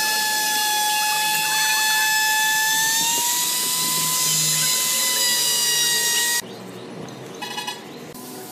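Handheld electric router running at high speed while cutting along the edge of a hardwood slab: a steady, high whine that rises slightly in pitch about three seconds in. It stops abruptly about six seconds in, leaving a much quieter background.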